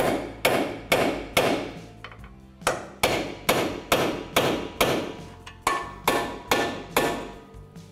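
Hammer striking a steel punch to drive headless lower ball joint rivets out through the control arm: sharp metallic blows about two a second, each ringing briefly, with a short pause about two seconds in.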